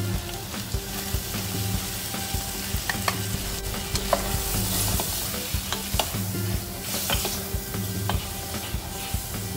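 Mutton pieces frying in a stainless steel pan with powdered spices, sizzling steadily while a wooden spatula stirs them, with scattered scrapes and taps of the spatula against the pan. The sizzle grows louder around the middle.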